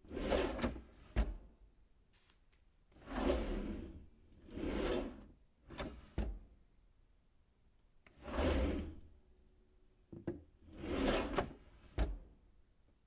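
Wooden kitchen drawer slid open and shut several times, each slide a rough rubbing run on its runners lasting about a second, with short sharp knocks as it bumps shut.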